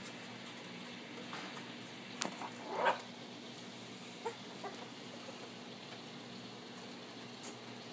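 One-month-old miniature pinscher puppies squeaking while they play-fight: a short squeal about three seconds in, the loudest sound, then two faint yips a second or so later. A sharp tap comes just before the squeal, over a steady low hum.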